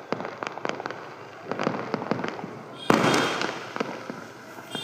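Fireworks going off: a rapid string of sharp crackling pops, then one loud bang about three seconds in that trails away.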